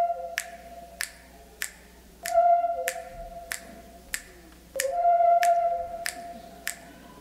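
Background music for the play: a flute-like melody holding long notes in phrases of about two seconds, over a steady beat of sharp clicks about every two-thirds of a second.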